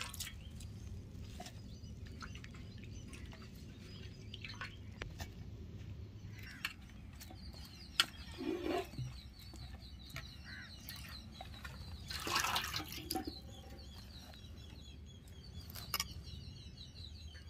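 Small splashes and drips of water with scattered clicks of handling, and birds chirping in the background from about halfway through.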